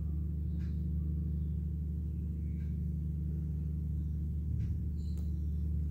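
A steady low hum, with a few faint soft taps.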